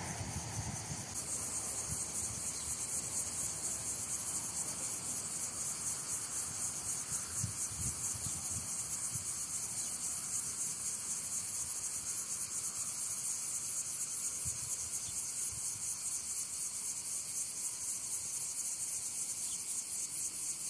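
A continuous high-pitched chorus of stridulating insects, a fast pulsing trill that grows a little fuller about a second in.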